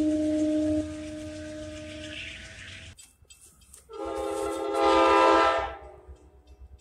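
Locomotive horns: one train's horn holds a steady note over a low rumble, drops in level about a second in and cuts off near three seconds; after a short hush, another train's horn sounds a chord, swelling about four seconds in and stopping near six.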